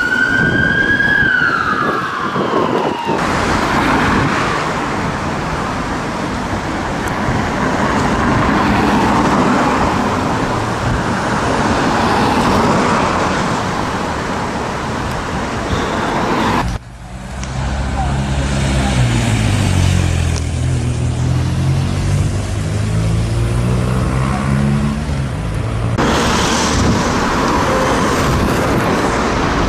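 An ambulance siren's wail sweeping down and dying out about three seconds in, followed by steady road traffic. Partway through, a nearby vehicle's engine pulls away with its pitch rising.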